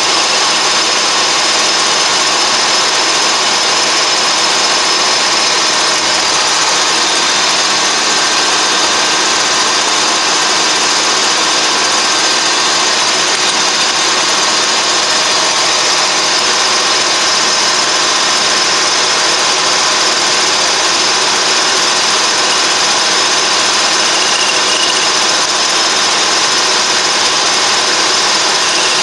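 Colchester Triumph 2000 geared-head lathe running at a steady speed, a loud even mechanical whirr with several steady whining tones from its headstock gearing.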